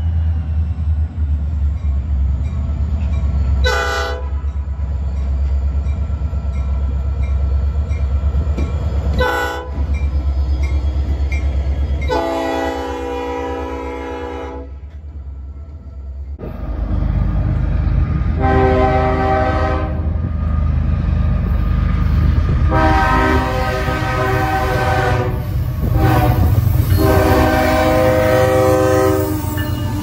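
Nathan P5 five-chime air horn on a Norfolk Southern diesel locomotive, sounded in a series: two short toots, a longer blast, then three long, louder blasts as the locomotive passes close. Under the horn runs the steady low rumble of the diesel engine.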